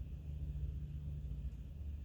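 Low, steady background hum with no other events.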